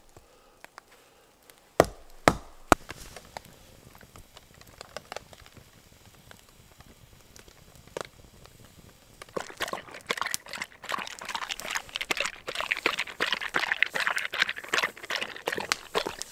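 A hatchet splitting firewood: three sharp chops about two seconds in, followed by a few small crackles from a wood fire. From about nine seconds, a dog crunching dry kibble from a bowl, a dense run of fast crunches.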